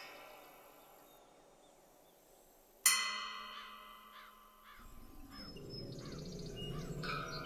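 A bell-like chime is struck once about three seconds in and rings away slowly. Over it a bird calls again and again in short curved calls. A low rumble comes up from about five seconds in.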